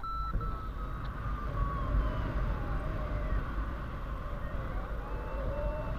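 Wind rushing over the microphone of a paraglider in flight, with a variometer's audio tone sounding over it. The tone comes in short steps and drifts lower in pitch after the middle; its pitch follows the rate of climb.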